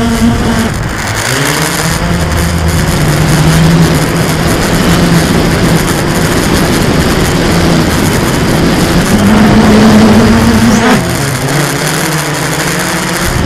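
Blade 350 QX quadcopter's brushless motors and propellers humming steadily over a rushing hiss, heard from the camera on board. The pitch glides down about a second in, holds, climbs again around nine seconds as the motors speed up, and drops back near the end.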